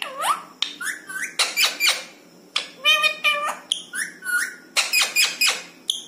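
Rose-ringed parakeet calling and chattering in quick short bursts: high rising whistled notes, clicks and speech-like chatter typical of a talking parrot's mimicry.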